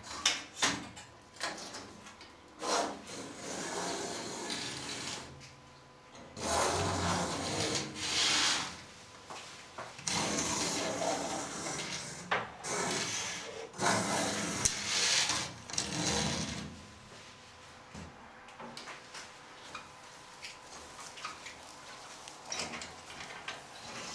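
Fabric greenhouse shade blind being handled and drawn along its roof wires: bursts of rustling and scraping with scattered clicks, quieter over the last several seconds.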